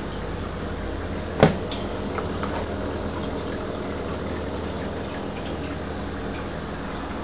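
Steady water flow and low hum from a reef aquarium's pumps and circulation. A single sharp knock sounds about a second and a half in.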